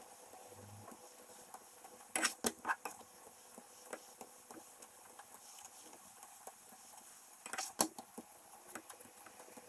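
Plastic spatula knocking and scraping against a nonstick frying pan while a paratha is pressed and flipped: a quick cluster of clicks about two seconds in and another near the end, over a faint steady background.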